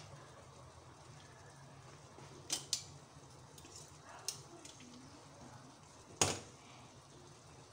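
Thick masala simmering in a pan on a gas stove, with a steady low hum and a few sharp pops and clicks. The loudest click comes about six seconds in, as metal kitchen tongs are picked up.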